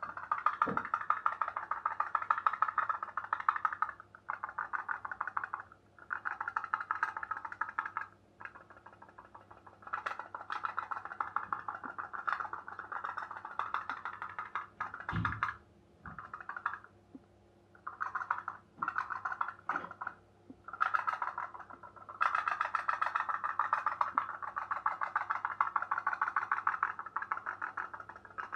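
Tinplate pop-pop toy steam boat, its candle-heated boiler popping in a fast, even rattle of many pops a second. The popping comes in runs that stop and start again several times.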